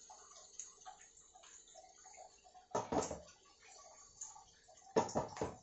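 Large aluminium cooking pot being shaken and set back on the stove, with two clunks of metal against the burner about two seconds apart. Under them, a faint patter of bubbling from the simmering chicken.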